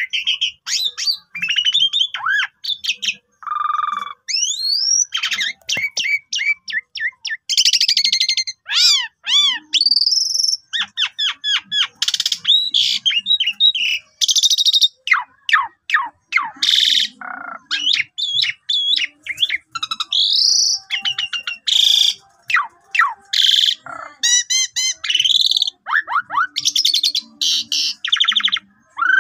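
Javan pied starling (jalak suren) singing a long, varied song without a break: whistled notes gliding up and down, rapid trills and harsh, buzzy notes.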